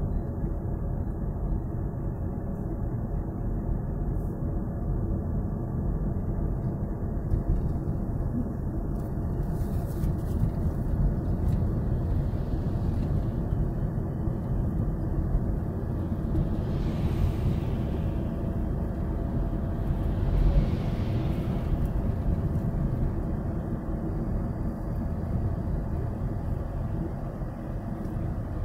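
Steady low rumble of engine and tyre road noise inside a moving car's cabin, with two brief swells of hiss about two-thirds of the way through.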